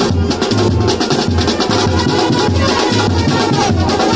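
Loud music with a steady, driving drum and bass beat, about two to three beats a second.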